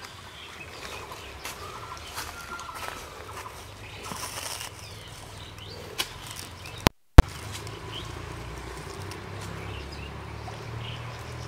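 Outdoor ambience with faint bird chirps and the rustle of hands rummaging through wet leaves and mud. About seven seconds in, the sound cuts out for a moment between two sharp, loud clicks.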